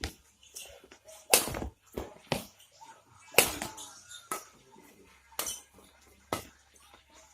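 Badminton rackets hitting the shuttlecock in a rally: a string of sharp hits about a second apart, the loudest a little over a second in and about three and a half seconds in.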